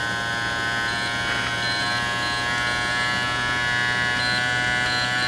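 Kemei KM-2242 cordless hair clipper running, a steady electric buzz with a whine, as its motor speed is stepped up in 100 RPM increments from 5,000 RPM.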